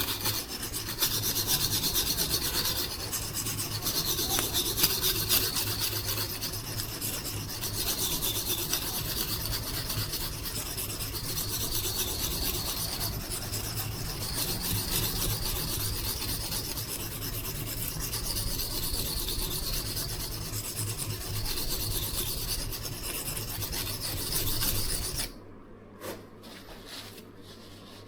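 A steel knife blade rasping back and forth over the fine side of an oil-soaked Norton 37C silicon carbide combination stone, stroke after stroke, as the edge is sharpened. The scraping stops abruptly near the end.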